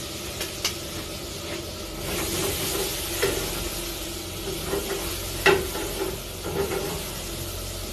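Food frying over high heat in a pan on a gas range, a steady sizzle that swells about two seconds in as the pan flares up into flames. Several sharp metal knocks of the pan being worked cut through, the loudest about five and a half seconds in.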